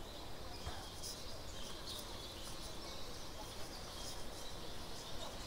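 Faint outdoor ambience: birds chirping now and then over a steady background hiss.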